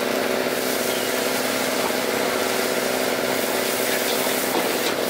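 Rice being stir-fried in a wok over a gas burner: a steady hum and hiss, with faint scrapes of a metal ladle against the wok.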